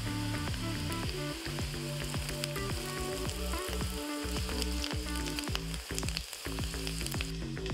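Chopped onion and sliced garlic sizzling in hot oil in a pot, stirred with a spatula, with a steady hiss and small clicks. Background music with a stepping bass line plays underneath.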